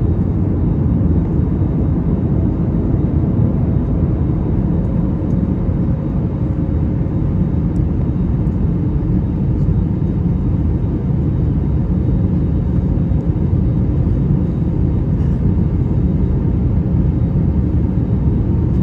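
Steady low rumble inside the cabin of an Airbus A321neo in its climb: engine and airflow noise, even throughout.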